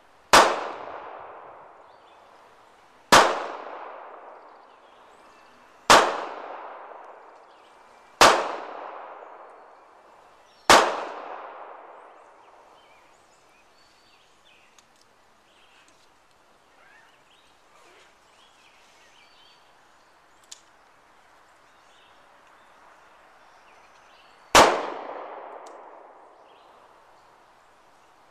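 Handgun shots fired one at a time: five about two and a half seconds apart, then a long pause and a sixth near the end, each shot followed by a trailing echo.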